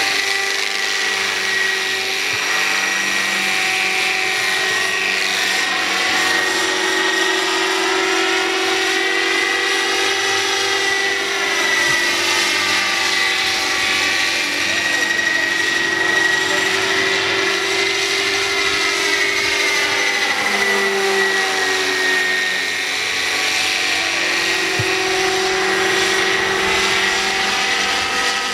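Electric Roban Bell 429 scale RC helicopter (700 class, about 1.9 m long) in flight: a steady high whine from its electric motor and drive, mixed with rotor noise. The pitch sweeps up and back down twice.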